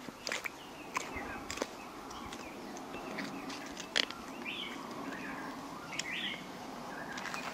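Scattered sharp clicks and rustling as a skinning knife works through goat meat and hide at the hindquarter, with a few short bird chirps in the background.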